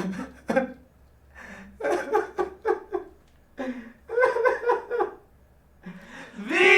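A person's voice laughing in three bouts of quick, pulsing bursts, then a loud, drawn-out yell that starts near the end.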